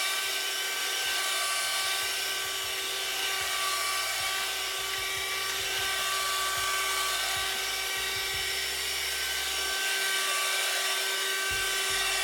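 Parkside PHSSA 20-Li C1 cordless hand-held vacuum cleaner running steadily: a high, even motor whine over the hiss of rushing air.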